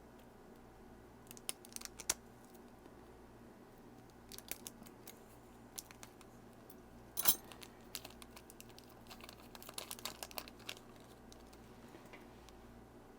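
Scattered small clicks and light taps from tiny watch parts and tools being handled, in several clusters, with one louder click about seven seconds in.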